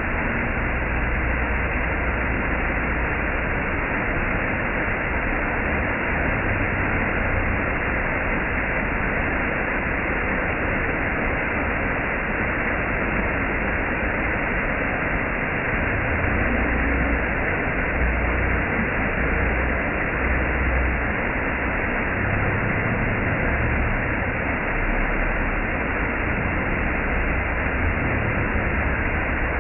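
Waterfall: a steady, loud rush of falling water, with uneven low rumbles underneath.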